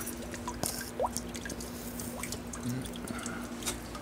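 Filtered leach solution trickling from the valve at the bottom of a conical filter tank into a plastic bucket, with irregular drips and drops plinking into the liquid over a faint steady hum.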